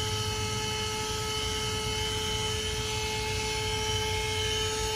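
Corded 12-volt handheld car vacuum, plugged into the cigarette lighter, running with a steady high-pitched motor whine as its crevice nozzle is worked over a fabric car seat.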